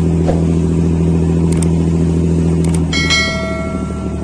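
Fishing boat's engine running with a loud, steady drone. A clear, bell-like ringing tone joins about three seconds in.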